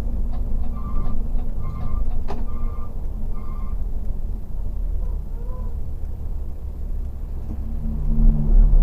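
Mercedes-Benz O500RS 1836 bus running on the road, a steady low rumble heard from the front of the cabin. Four short beeps sound about a second apart in the first few seconds, and a louder low drone comes in near the end.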